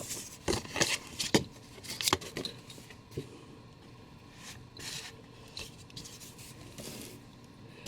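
Packaging being handled while a statue is unboxed: several sharp clicks and knocks in the first two seconds or so, then quieter rubbing and scraping.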